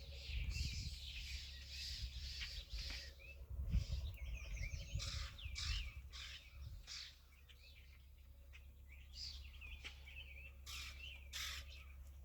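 Small songbirds chirping and twittering, many short calls, with brief scratchy rustles in between. A low wind-like rumble runs under the first half and fades about seven seconds in.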